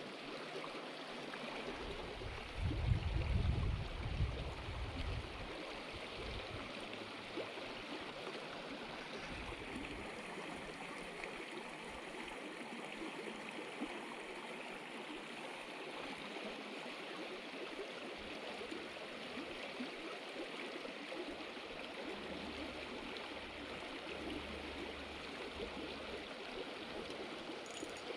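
Steady rushing of a small, rocky river's current, with a brief low rumble about three seconds in.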